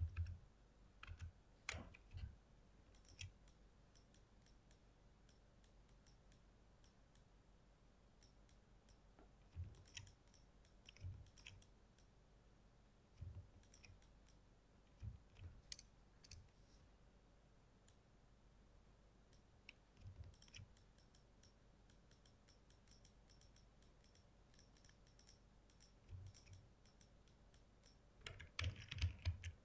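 Near silence broken by faint, irregular clicks of a computer mouse, coming in short clusters every few seconds.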